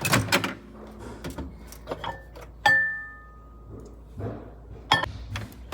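Kitchen handling noises: scattered clicks, knocks and dull thuds. About two and a half seconds in comes one sharp, ringing clink of a hard cup or glass being struck or set down.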